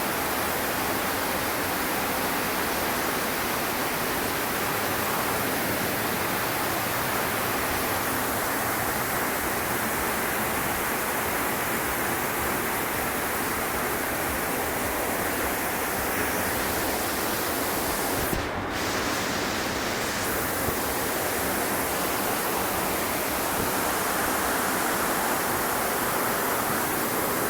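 Heavy rain pouring down, a steady rushing hiss that thins briefly about two-thirds of the way through.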